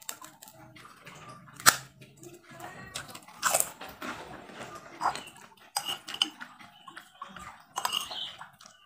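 Eating sounds: mouth chewing and a metal spoon clinking on a ceramic plate, with one sharp clink about one and a half seconds in and irregular softer clicks and mouth noises after.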